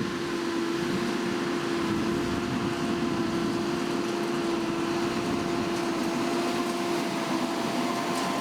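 Large square baler drawn by a tractor, running steadily: an even mechanical hum with a constant whining tone over the noise of the machinery.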